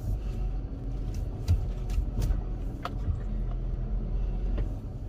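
A steady low rumble of a car's engine and tyres heard from inside the cabin while driving, with a few scattered light clicks and knocks.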